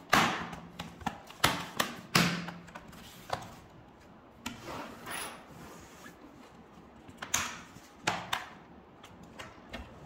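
Plastic lower shell of a Lenovo ThinkPad T580 being pressed down around its edges so its clips snap into place. A series of sharp clicks: a cluster in the first couple of seconds, one more about three seconds in, and a few more near the end.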